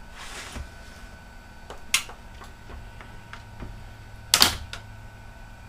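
Sharp clicks and taps of plastic laptop parts being handled and pried during disassembly: a short rustle, one click about two seconds in, and a louder clatter of clicks about four and a half seconds in, with faint ticks between.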